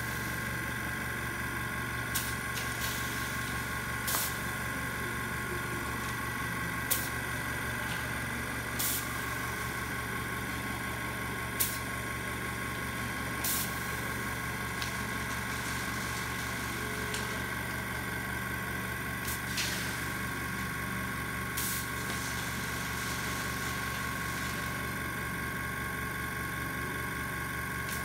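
Air compressor running steadily, with short sharp hisses of compressed air at irregular intervals as air is fed to a Strandbeest in place of wind.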